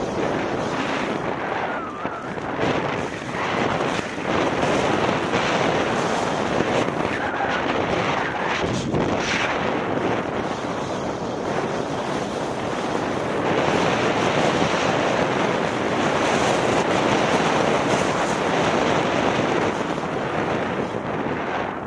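Wind buffeting the microphone of a camera moving downhill at speed, mixed with the steady hiss and scrape of a snowboard sliding and carving over snow, swelling and easing through the turns.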